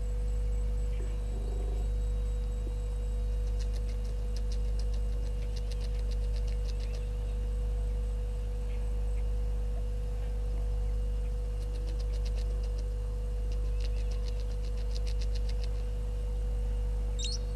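Steady low electrical mains hum, swelling gently and evenly about every second and a half. Three runs of quick, high ticking come and go over it, and a short high bird chirp sounds near the end.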